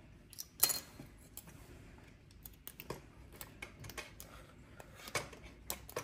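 Faint metallic clicks and scraping of a lock pick and tension wrench working the pins of a Master Lock M830DLH padlock, with a sharper click about half a second in and another about five seconds in.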